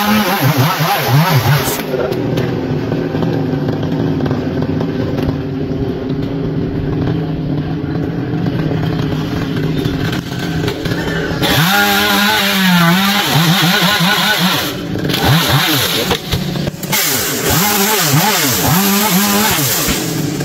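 Chainsaw engine revving up and down as it cuts a branch, dropping back to a steady idle in between. About eleven seconds in it gets louder and revs repeatedly again.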